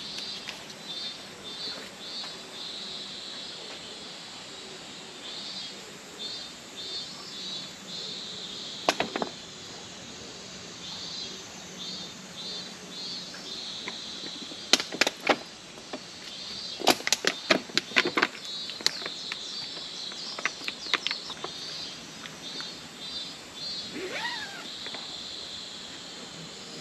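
Insects chirping in repeated short trains of rapid pulses, with scattered sharp clicks and snaps, several of them clustered in the middle.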